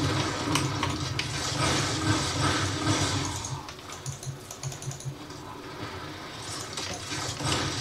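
Computer keyboard keys clacking rapidly under game play, over first-person-shooter gunfire and effects coming from small desktop speakers. The game noise is densest in the first three seconds or so, then drops to quieter clicks and hiss.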